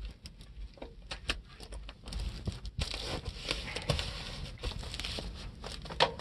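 Gloved hands handling the stiff vinyl skirt of a tractor snow cab: rustling and crinkling of the vinyl, with many small scattered clicks and knocks.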